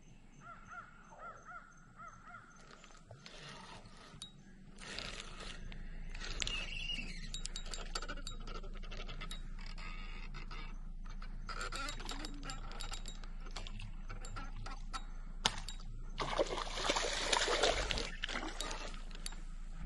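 A hooked Oscar cichlid being reeled in on a spinning reel, with the reel winding and clicking. A loud splashing stretch near the end is the fish thrashing at the surface by the bank. Birds call in the background.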